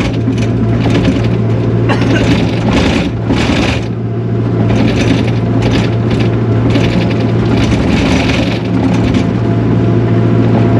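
Takeuchi TL240 compact track loader running loud, heard from the operator's seat. A steady engine drone is broken every second or two by bursts of higher-pitched mechanical clatter from the hard-worn, beat-up machine.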